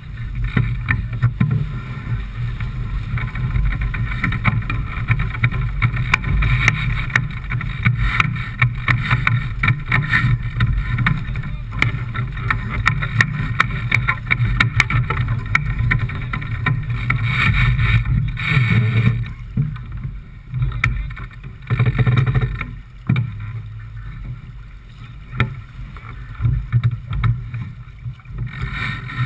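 Wind buffeting the microphone over the rush of water along a J/24 keelboat's hull under sail, with a low rumble and fine crackling throughout; it eases for a few seconds at a time in the second half.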